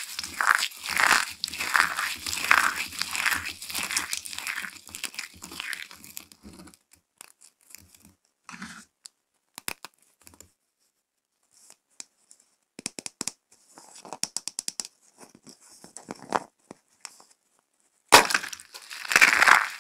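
Dry, chopped soap pieces crunching in the hands as they are squeezed, in a steady rhythm of about two crunches a second. After about six seconds this gives way to sparse small clicks and crackles as fingers pick through the flakes. Near the end a sudden loud crunching starts as a dry soap ball is crushed.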